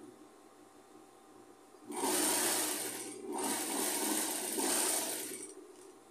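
Industrial lockstitch sewing machine running as it stitches through layers of fabric strips, starting about two seconds in and running in two bursts with a brief pause between.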